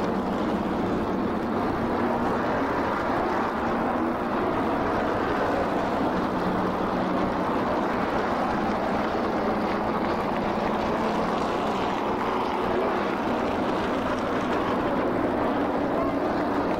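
NASCAR Modified race cars' V8 engines running at speed on the track, blending into one steady engine noise.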